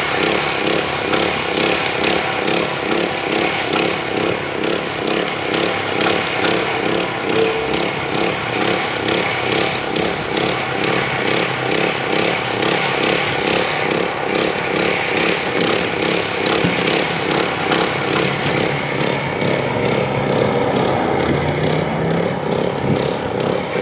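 A motor running steadily with a fast, even pulse, without a break.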